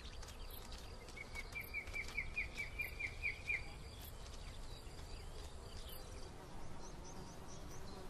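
Faint summer outdoor ambience of buzzing insects. About a second in comes a quick run of about a dozen short high chirps, lasting a couple of seconds, and a few fainter chirps follow near the end.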